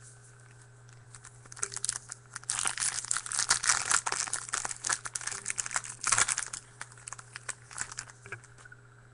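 A foil trading-card pack wrapper being torn open and handled. The dense, irregular crinkling starts after a second or so, is loudest in the middle, and tails off near the end.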